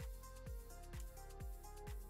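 Quiet background music: an electronic track with a steady kick-drum beat about twice a second under held notes.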